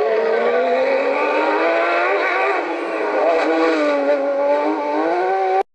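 Rally car engine at full throttle, its pitch climbing and dropping through gear changes and corners. The sound cuts off abruptly near the end.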